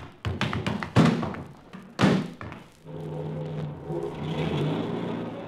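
Radio-drama sound effects of car doors slamming: three thuds in the first two seconds, the loudest about a second in. Then a car engine runs and the car pulls away.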